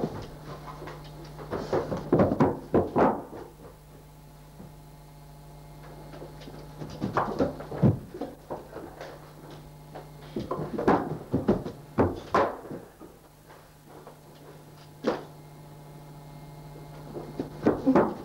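Thumps and bangs against a closed door and wall, in several bursts of quick knocks with short gaps between, as if from people scuffling in the room behind it. A steady low hum runs underneath.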